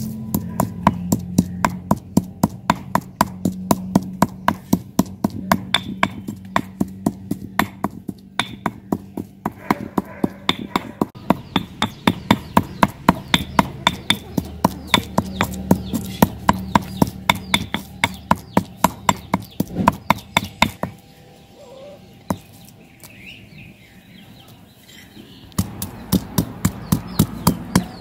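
Stone pestle pounding in a stone mortar, crushing red chilli, salt and cumin into a chutney paste: a steady run of sharp knocks, about three a second. The knocks stop for a few seconds about three-quarters of the way through, then start again as raw mango pieces are crushed.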